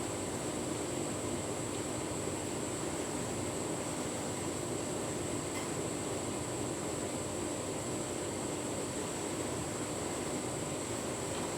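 Tumble dryer running steadily mid-cycle, its motor and fan humming as the drum turns a full load of bedding.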